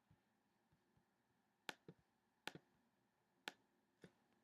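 Four sharp, single clicks about a second apart over near silence: a computer mouse being clicked.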